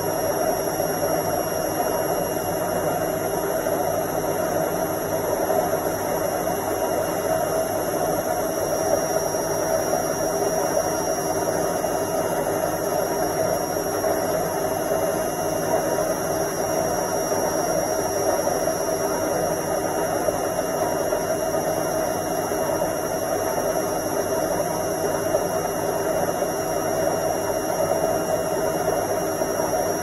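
Indesit front-loading washing machine on its spin cycle, the drum spinning at a steady speed. The motor and drum give an even whir with a thin high whine over it.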